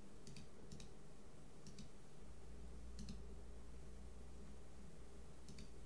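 Several light, sharp clicks at irregular intervals, over a steady low electrical hum that grows a little stronger about two seconds in: hands working the controls while setting up an oscilloscope.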